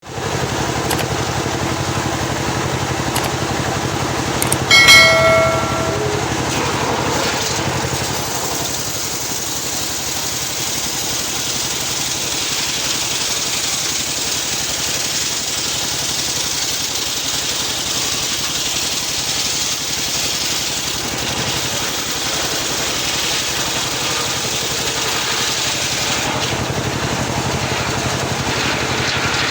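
Engine-driven homemade circular sawmill running steadily while its blade rips a teak log lengthwise. About five seconds in there is a brief, loud, high squeal.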